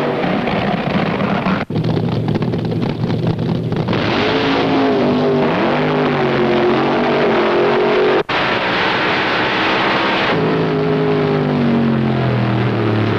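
Drag racing cars' engines running hard down the strip, their pitch sliding up and down over several passes. The sound cuts out for an instant twice, about two seconds and about eight seconds in.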